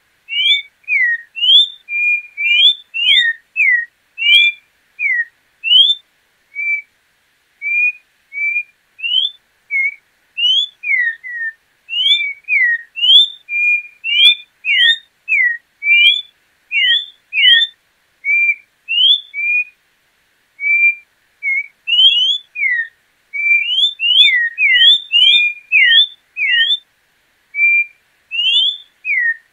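Orange-backed troupial singing: a long run of short, clear whistled notes, some rising and some falling, at about two notes a second with brief gaps.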